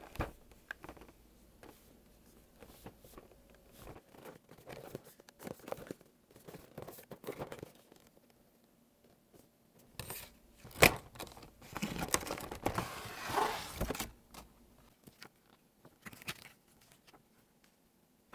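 A plastic model kit and its packaging being handled: scattered light clicks and scrapes, one sharp click a little past the middle, then a couple of seconds of plastic crinkling.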